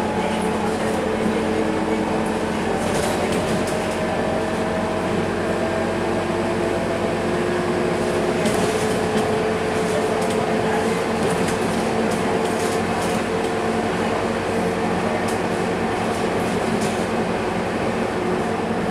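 Inside a moving Scania K230UB single-deck bus: its five-cylinder diesel engine and drivetrain hum with a whine that rises slowly in pitch over the first ten seconds or so as the bus gathers speed, then holds steady. Road noise runs underneath, with scattered light rattles from the cabin.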